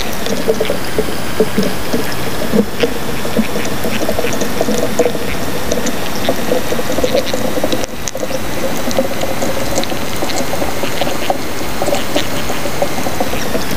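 Underwater sound picked up by a speargun-mounted camera in its housing: a steady hiss and hum under dense, irregular crackling clicks.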